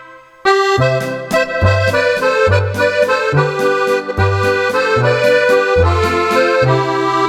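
Roland FR-4X digital accordion playing a tune with an accordion voice: a melody over a steady alternating bass-note-and-chord accompaniment. It comes in after a short break about half a second in and fades near the end.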